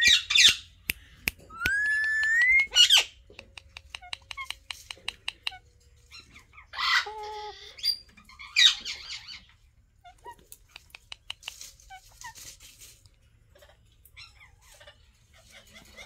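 Alexandrine parakeets squawking, loud and short, four times in the first nine seconds; the second squawk follows a rising, held whistle. Between the squawks come quick runs of small clicks, and softer chirps and clicks follow later on.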